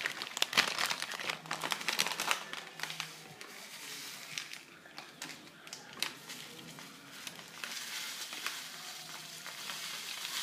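Plastic bag of breadcrumbs crinkling as it is handled and tipped over a bowl, in bursts of crackling that are busiest in the first few seconds, die down, and pick up again near the end.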